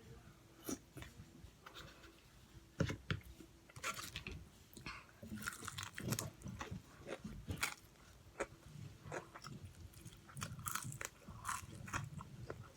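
Close-up eating sounds from a mouth into the microphone: biting and chewing crunchy fried chicken, with irregular crisp crackles and wet mouth noises.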